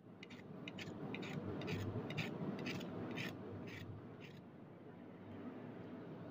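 Steady low background noise with a run of light, sharp clicks, about two a second, that stop about four seconds in.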